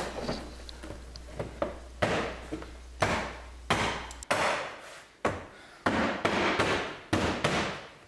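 Hands thumping the plastic door trim panel of a 2004 Chrysler Sebring to seat its retaining clips into the door: about nine sharp knocks at irregular intervals.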